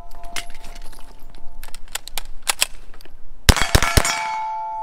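Ruger PC Carbine 9mm carbine firing: spaced single shots, then a quick string of about five louder shots about three and a half seconds in. A lingering ring hangs on after the shots.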